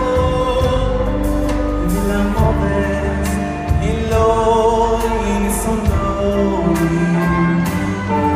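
Male lead singer performing live with a band, holding long sung notes over the accompaniment, heard from the audience through the hall's PA.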